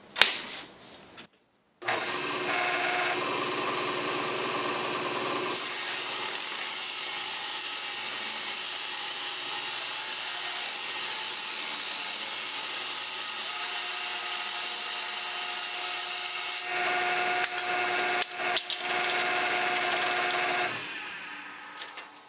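Table saw with a fine 7-1/4 inch thin-kerf blade starts about two seconds in and runs steadily. From about five seconds in it rips a thin strip of wood off a board for some eleven seconds. It then runs free with a steady hum and a few knocks, and winds down near the end.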